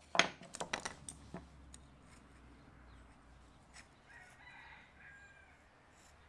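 A rooster crowing faintly in the distance about four seconds in, one drawn-out call. Before it, in the first second or so, a quick run of sharp knocks and clicks from handling a metal blade and tools on a wooden workbench, the loudest sounds here.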